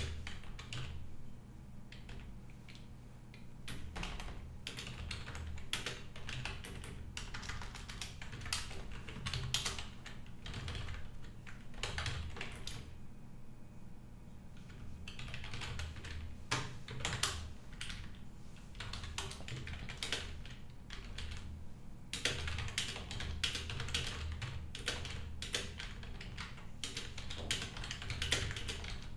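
Typing on a computer keyboard: runs of quick irregular keystrokes broken by a few pauses of a second or two.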